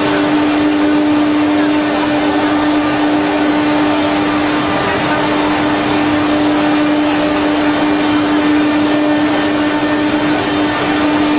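CNC engraving machine's spindle running steadily, a constant whine over a steady rushing noise.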